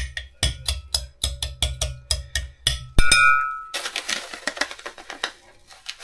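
A metal spoon tapping quickly against a glass bowl, about six taps a second with dull knocks through the wooden board beneath. About three seconds in comes one harder clink that rings briefly. After that the spoon scrapes, spreading brown sugar across the bottom of the bowl.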